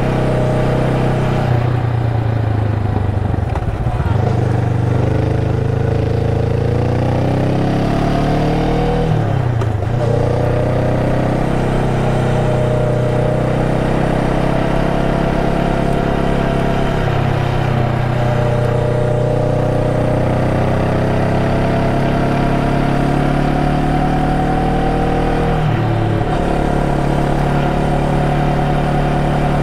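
Honda Rebel 500's parallel-twin engine running under way. The engine pitch climbs steadily, with several brief dips and recoveries.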